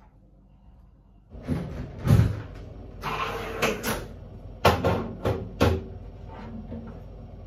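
Household objects being handled and set down in a small tiled bathroom: rustling and clattering, starting about a second in, with several sharp knocks, three of them in quick succession about five seconds in.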